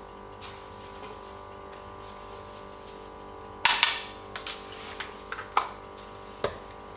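Sharp kitchen knocks and clatter: two loud knocks about three and a half seconds in, then a handful of lighter, irregular clicks and taps, over a steady hum.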